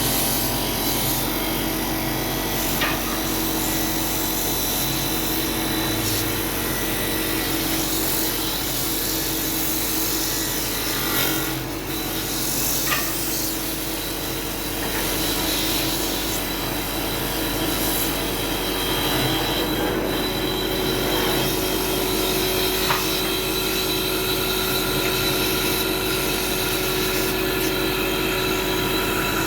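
CNC wood lathe running, its tool working the spinning wooden workpiece: a steady noise over a constant machine hum, with a few short clicks.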